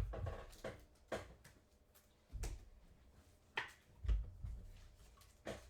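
Trading cards and packaging being handled on a table: a handful of soft thumps and brief rustles, about one a second.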